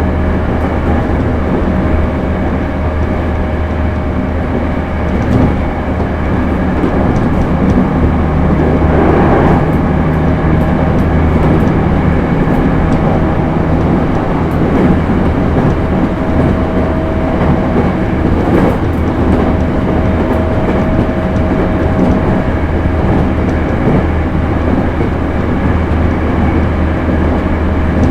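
JR East E231-series suburban electric train with Hitachi IGBT inverters, running steadily along the line: a continuous rumble of wheels on rail under a flat, steady whine, with a few faint clicks.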